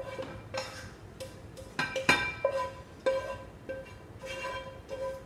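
Background music of short, repeating plucked notes.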